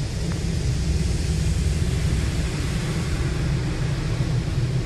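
Automatic car wash jets spraying water over the car, heard from inside the cabin as a steady rushing hiss over a deep rumble.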